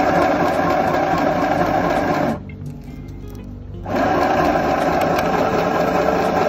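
Small electric sewing machine stitching fabric. It runs for about two seconds, stops for about a second and a half, then starts again.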